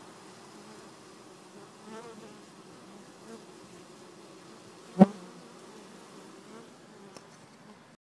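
Honeybees of a healthy, growing colony buzzing at a busy hive entrance: a steady hum that swells now and then as single bees fly close past. About five seconds in, one short, loud bump close to the microphone stands out above the buzzing.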